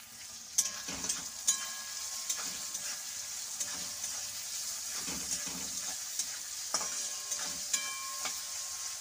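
Cauliflower, potato and onion frying in oil in a metal kadai, a steady sizzle, while a metal slotted spatula stirs and scrapes through them. The spatula knocks against the pan several times, some knocks leaving a brief metallic ring.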